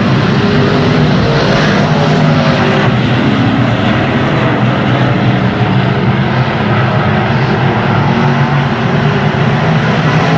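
Stock car racing engine running loud and steady at high revs, holding a fairly even pitch.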